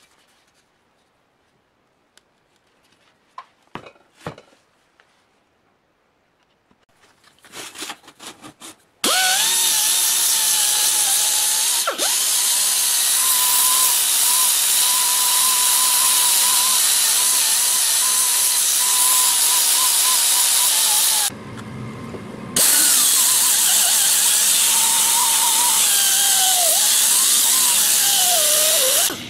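Faint knocks of metal parts being handled, then a Husky right-angle air sander running with a loud hissing rush and a steady whine as it sands cast compressor parts. It stops for about a second, starts again, and its whine drops in pitch near the end as it is pressed harder into the work.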